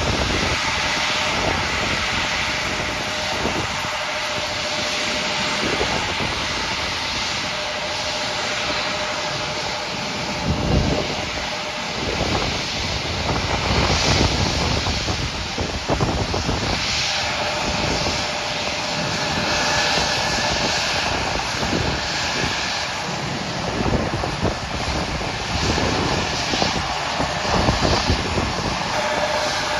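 Jet engines of a Peach Airbus A320-family airliner running at low taxi power as it taxis past: a steady engine whine over a dense rushing hiss.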